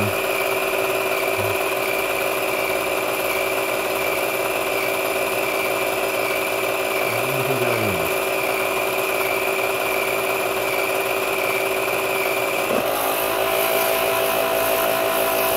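Steady mechanical whirr of an 8mm film projector running, with a fixed high tone over a low hum. A second, slightly pulsing tone joins about thirteen seconds in.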